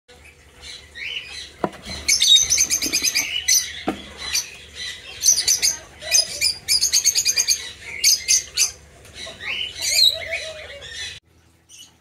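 Lovebirds chirping in quick, high-pitched runs, over and over, around a wooden nest box, with two sharp knocks early on. The chirping breaks off abruptly shortly before the end.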